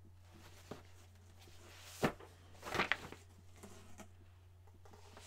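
Old hockey magazines handled on a desk: a sharp tap about two seconds in and a short paper rustle just after, with a few lighter clicks, over a faint steady low hum.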